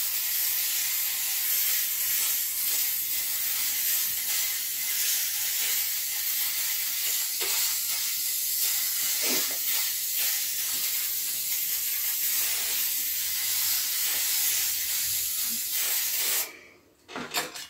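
Aerosol can of Comex gold spray paint spraying in one long continuous hiss that cuts off near the end, followed by a couple of light knocks.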